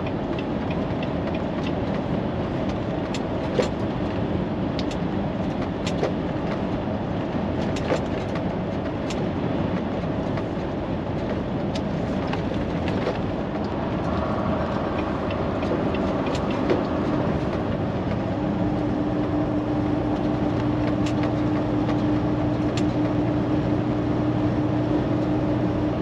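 Volvo semi-truck running at highway speed, heard from inside the cab: a steady drone of engine and road noise with a few faint clicks. A steady hum joins in about two-thirds of the way through.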